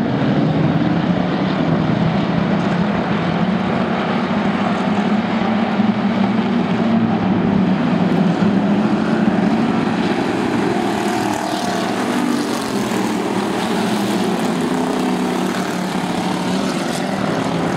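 A pack of hobby stock race cars running at speed together, a loud, steady drone of engines whose pitch wavers as the cars circle.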